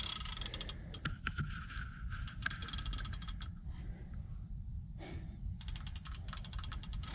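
Large spinning reel's drag clicking rapidly as a big thresher shark pulls line off, in three runs of fast ratcheting clicks, the second one longest.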